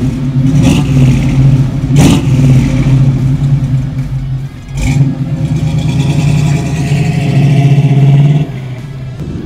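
1979 Chevrolet Camaro Z28's 350 cubic-inch V8 with a new dual exhaust, running loud with a few sharp spikes in the first seconds, then accelerating away with a rising note that drops off abruptly near the end.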